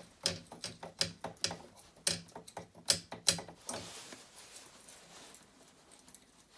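Spanner clicking and knocking against the metal nut of a bar shower as it is loosened: a quick, irregular run of sharp clicks for about three and a half seconds, then only a faint hiss.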